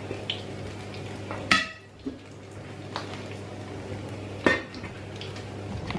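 Stainless-steel pot lid being handled and set on a pot. There is a ringing metal clink about one and a half seconds in, a lighter click near three seconds, and the loudest clank at about four and a half seconds as the lid goes down. A steady low hum runs underneath.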